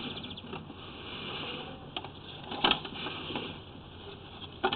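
Sewer inspection camera's push cable being handled and fed into a two-way cleanout: a steady mechanical hiss with a few short knocks.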